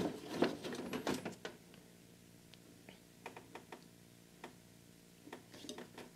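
Table saw blade-tilt mechanism being adjusted by hand to set a 60-degree bevel: a run of clicks and knocks in the first second and a half, then scattered faint ticks as the blade is eased into position, over a faint steady hum.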